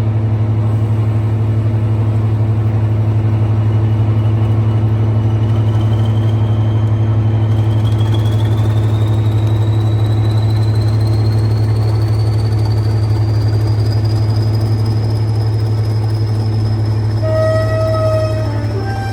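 A Class 20 and a Class 55 Deltic diesel locomotive working together as they pull away, with a loud, steady deep engine drone and a high whine that rises steadily in pitch. A short horn note sounds near the end.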